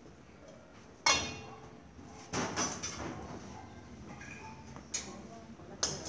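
Stainless steel clanking: a sharp metal knock that rings about a second in, followed by lighter clatter and two short knocks near the end, as a stainless steel bowl handles against the stainless steel jar of an industrial blender.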